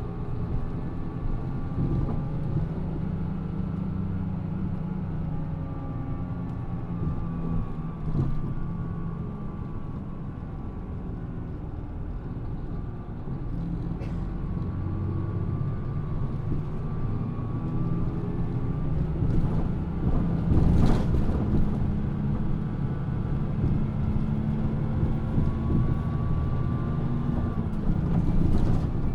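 Mitsubishi Fuso PA-MK25FJ bus's diesel engine running on the road, its pitch rising and falling several times as the bus pulls away and changes speed, with a thin whine above the engine note. The bus is run at low revs and is known for an abnormal noise. About two-thirds of the way through there is a brief louder rush of noise.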